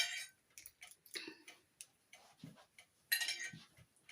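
Quiet sounds of eating at a table: scattered small clicks and clinks of cutlery against dishes, with two short hissing sounds, one at the start and one about three seconds in.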